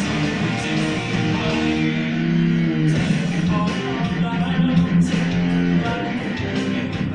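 Electric guitar playing a run of held notes and chords that change about once a second, recorded on a THL T6 Pro smartphone's microphone as a sound-recording test.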